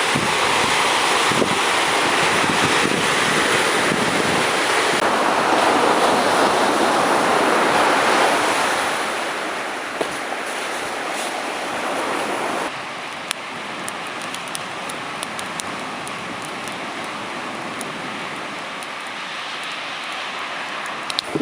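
Ocean surf washing on the shore, with wind buffeting the microphone. The rush is steady, softens about nine seconds in, and changes suddenly a little past the middle.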